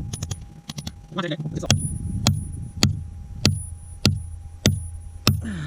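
Hand hammer striking a steel chisel into hard cap rock: after light tapping, seven even blows land about 0.6 s apart from about a second and a half in, each a sharp crack with a short metallic ring.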